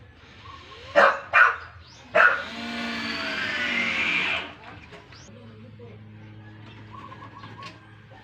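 A dog barks three times. Then a cordless drill runs for about two seconds, driving a screw into the plywood panel of a cabinet, its whine rising slightly.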